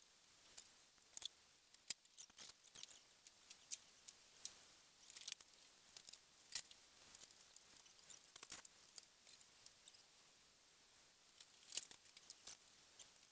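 Near silence broken by faint, irregular light clicks and ticks, a few a second, as people handle things at the car out in the dark.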